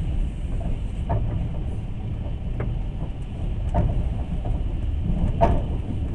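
Passenger train running on the rails, a steady low rumble with a few sharp knocks, about one every second or so.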